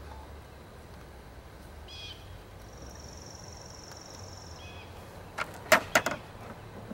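Birds calling in the background, one giving a long high trill of about two seconds, then a quick run of four or five sharp knocks and clatters near the end as hive equipment is handled.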